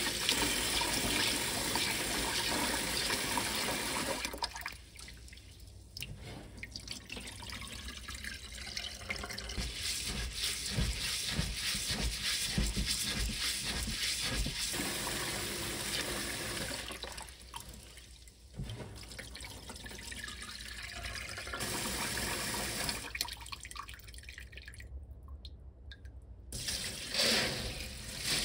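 Washing rice in a stainless steel bowl: tap water runs into the bowl while hands swish the grains, with a steady rush at the start and again later, and between these stretches the wet rice is rubbed and churned by hand with a gritty, splashy rustle.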